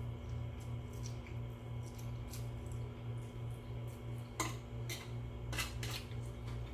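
Eating utensils clinking against a dish a few times during a meal of ramen noodles and sausage, several sharp clicks bunched in the second half, over a low steady hum.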